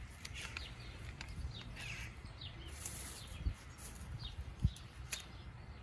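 Birds chirping, a string of short falling calls, over a low steady rumble, with a few brief knocks in the second half.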